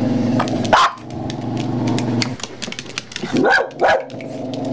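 Two small dogs play-fighting: a steady low growl, broken by a sharp yap about a second in and two more past the middle.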